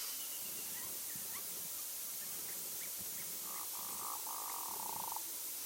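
Male hooded merganser giving its courtship call: a buzzy, finely pulsed call in three quick parts, starting about three and a half seconds in and lasting under two seconds, over a steady hiss.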